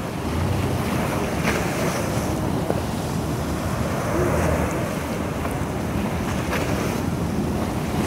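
Small sea waves breaking and washing up over a sand beach in a steady rush, with wind buffeting the microphone as a low rumble.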